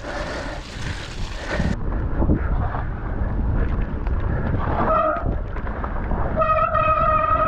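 Mountain bike running over a wet, rough woodland trail, with the rumble of tyres and frame, then wet disc brakes squealing: a short squeal about five seconds in and a steady, high-pitched squeal lasting about two seconds near the end.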